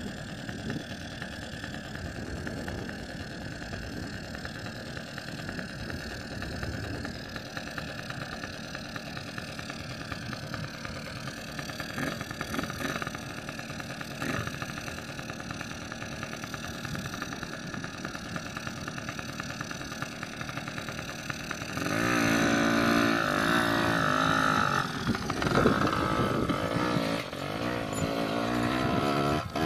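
Small dirt bike's engine, a Yamaha PW80, idling steadily, then revving up louder about three-quarters of the way through as the bike pulls away.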